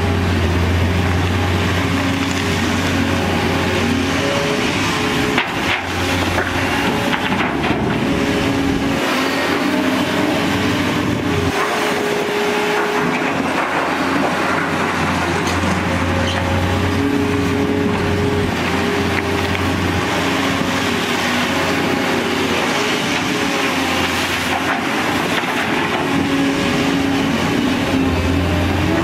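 Volvo crawler excavator's diesel engine and hydraulics working as it digs and swings, the engine note rising and falling with the load.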